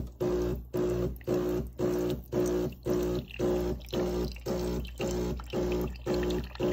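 DeLonghi Perfecta's newly replaced pump buzzing in short even pulses, about two a second, as it pushes rinse water out through the coffee spouts; the replacement pump is working.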